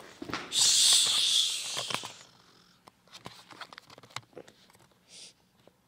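A person shushing: one drawn-out "shhh" of about a second and a half, followed by faint clicks and rustles.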